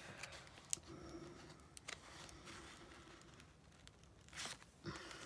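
Quiet paper rustling and scraping as a bone folder is worked into a paper journal pocket to free an insert stuck inside, with a few light clicks and a short louder rustle near the end.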